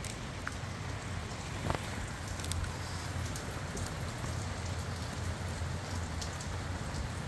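Steady rain falling, with scattered sharper ticks of drops striking nearby surfaces.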